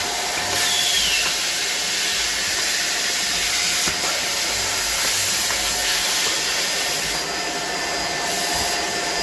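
Two Deerma handheld stick vacuums, a DX700 and a DX810, run together as they suck up small bits of litter off a tile floor. The sound is a steady loud rush of air with a constant high motor whine.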